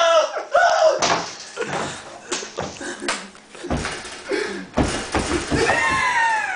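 A household commotion: several loud thumps and bangs among shrieking and laughing voices, with a long wail falling in pitch near the end.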